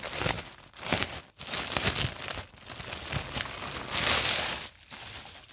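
Clear plastic packaging around folded garments crinkling as hands handle and unwrap it, in irregular bursts, loudest about four seconds in.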